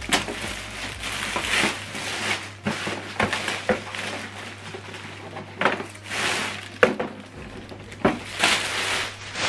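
Clear plastic wrapping bag crinkling and rustling in repeated bursts as it is tugged and pulled off an inkjet printer, with a few short knocks from handling the printer.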